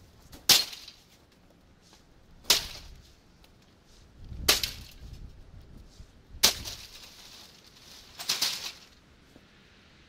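Five axe blows about two seconds apart, each a sharp crack striking the plastic housing of a Lasko 3733 box fan, a couple of them trailing off in a brief crunch of breaking plastic.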